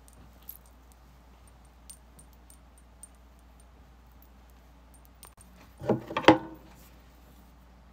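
Faint clicks and rustles of hands working through hair, then a louder clattering burst of scrapes and knocks about six seconds in as a hand passes close to the phone's microphone.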